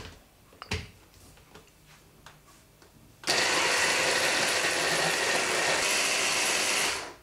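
Electric hand-blender chopper attachment chopping herbs and garlic into mayonnaise. A couple of light knocks as the motor unit is seated on the bowl, then about three seconds in the motor starts suddenly, runs steadily for nearly four seconds, and cuts off.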